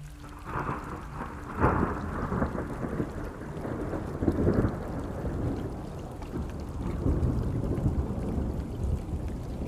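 Thunder rolling over steady rain, with a deep rumble and two louder peaks about a second and a half in and again around four and a half seconds in.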